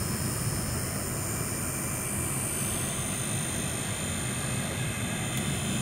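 Car running and rolling slowly, heard from inside the cabin: a steady low rumble of engine and tyres under a steady hiss.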